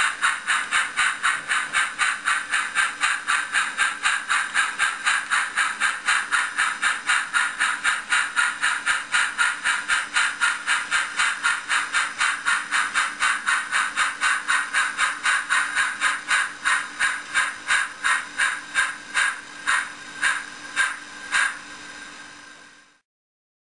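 Sound-equipped H0n3 model steam locomotive giving steady exhaust chuffs with hiss, about four a second. The beats slow and space out over the last few seconds as the engine comes to a stop, then the sound cuts off.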